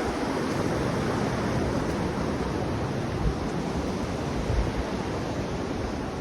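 Wind blowing steadily, with a few short low thumps where gusts buffet the microphone.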